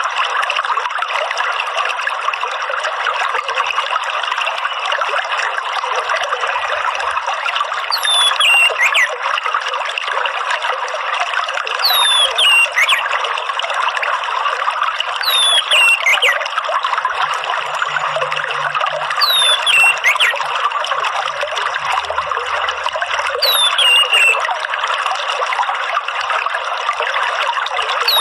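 Steady trickling running water. From about eight seconds in, a short falling bird whistle repeats about every four seconds: an orange-headed thrush lure call looped over the water.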